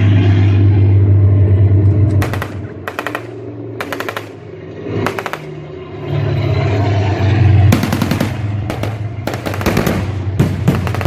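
Machine-gun fire in a series of short rapid bursts, starting about two seconds in, over a steady low hum.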